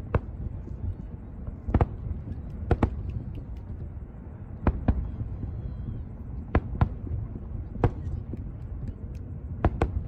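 Aerial fireworks bursting: about ten sharp bangs a second or two apart, several in quick pairs, over a steady low rumble.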